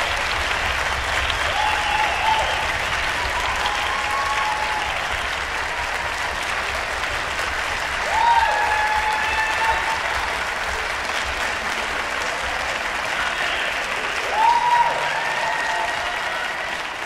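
Audience applauding steadily in a concert hall, with a few voices calling out above it about eight and fourteen seconds in.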